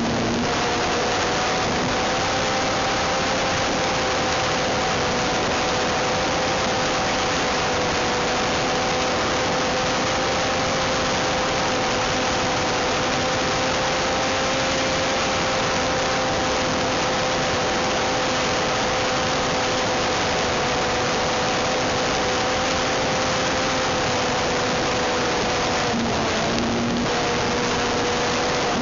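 Cox .049 Black Widow two-stroke glow engine on a model airplane running steadily at high revs, a held high buzz over a constant rush of noise; its pitch briefly dips near the end.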